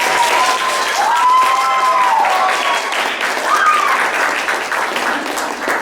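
Audience applauding, a dense patter of hand claps, with a few voices calling out over it.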